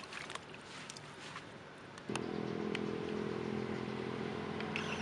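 Water soaking into the soil of a grow bag, with faint trickling and small pops, then about two seconds in a steady engine hum starts and covers it.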